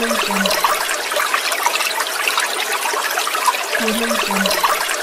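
Water in a bathtub, a steady trickling and splashing wash.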